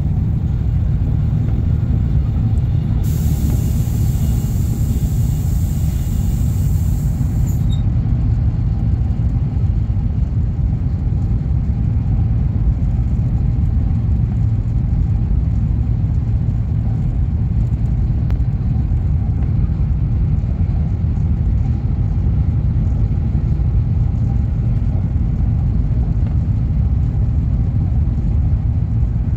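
Steady low rumble of a high-speed train heard from inside the passenger carriage. A high hiss joins it about three seconds in and cuts off suddenly about five seconds later.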